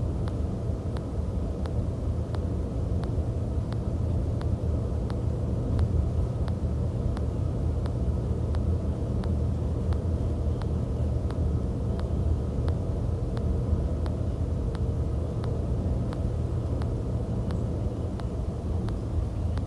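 Daewoo BH120F coach's engine and road noise heard from inside the driver's cab while cruising: a steady low rumble, with faint ticks about two to three times a second.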